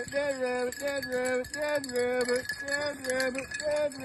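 Beagles baying as they run a rabbit's track: a steady run of drawn-out bawling notes, about two a second, each sliding up at its start and then held.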